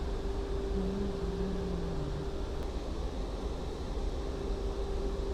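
Small fishing boat's engine running steadily: a low rumble with a steady hum that drops out briefly in the middle.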